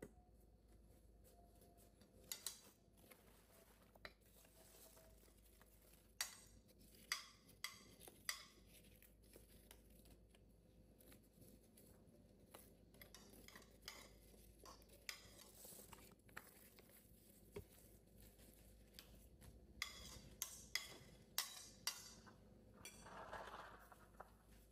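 Quiet kitchen handling: about a dozen scattered sharp clicks and clinks of utensils against dishes, with soft rustling in between.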